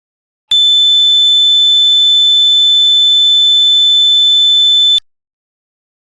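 A single loud, steady, high-pitched electronic alarm tone, typical of an emergency-alert-style alarm, that starts abruptly about half a second in, holds unchanged for about four and a half seconds, and cuts off suddenly.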